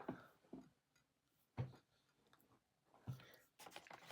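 Near silence, with a few faint, short knocks and clicks spread through the quiet.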